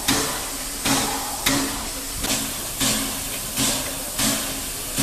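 Steam-driven air compressor of a MÁV class 424 steam locomotive at work: a steady steam hiss with a rhythmic puff about one and a half times a second.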